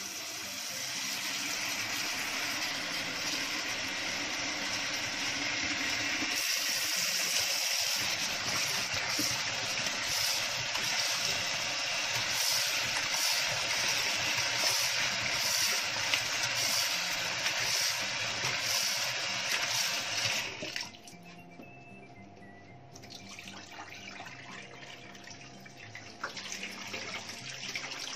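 Kitchen tap running into a stainless steel pot of cut potato sticks, with splashing as they are stirred by hand and rinsed of starch until the water runs clear. The tap stops about twenty seconds in, leaving much quieter water sounds.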